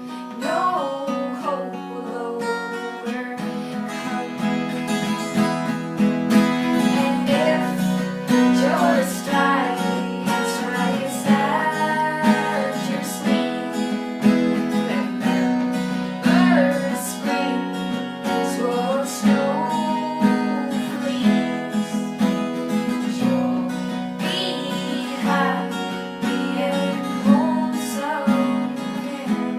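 Acoustic guitar strummed steadily, with a singing voice over it.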